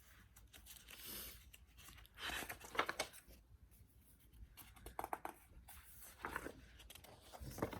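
Faint paper rustling and handling noises as a picture book's pages are turned, in short scattered bursts.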